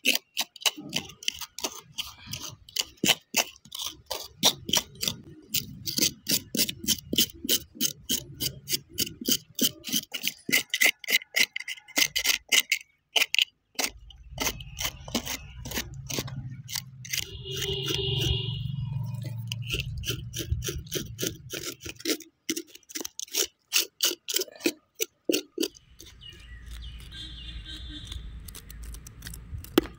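Knife blade scraping the charred, singed skin off a whole plucked country chicken in quick repeated strokes, several a second, cleaning the bird after singeing. Stretches of low rumble run under the strokes in the middle and near the end.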